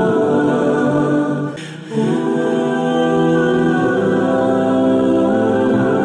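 Background music of sustained choir-like voices holding long notes, with a brief break about a second and a half in.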